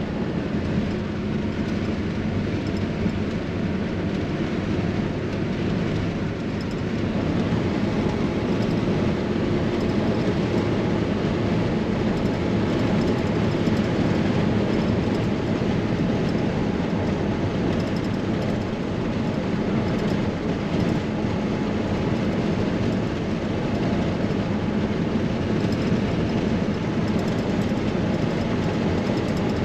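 Steady road noise of a car being driven at speed, heard from inside: engine hum under tyre and wind noise, rising slightly in level about seven seconds in.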